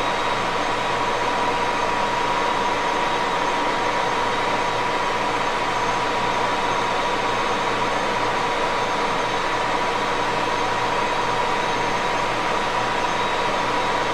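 1941 Axelson gear head engine lathe running steadily, its gearbox giving a continuous whine over the machine noise.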